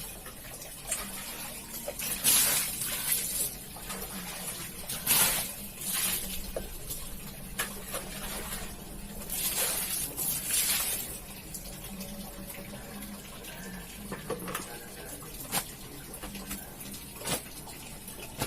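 Water splashing and running in irregular bursts as a carpet is washed by hand, over a steady low hum.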